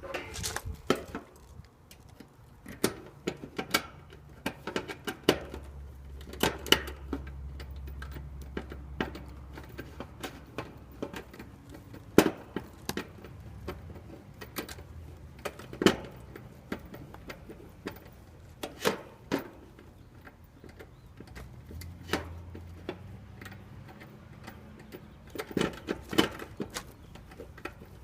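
Irregular metallic clicks, taps and clanks of hand tools and parts: screwdriver work securing a newly installed dual run capacitor inside an air conditioner condenser's electrical compartment.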